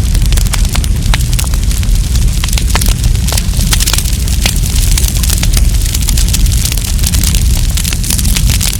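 Wood campfire crackling and popping, dense irregular snaps over a steady low rumble of the burning fire.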